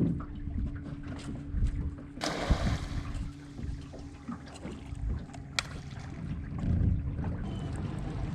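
Small fishing boat's outboard motor running steadily under way, with wind on the microphone and a short rush of noise about two seconds in.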